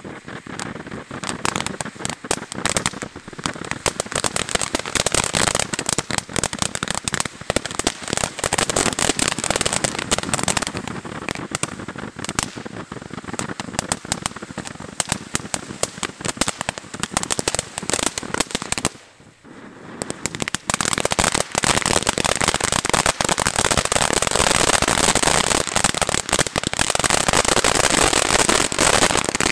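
Pyro Planet Blueberry Moonshine firework fountain burning, with a dense, rapid crackle throughout. About two-thirds of the way through it briefly dies down, then comes back louder and denser to the end.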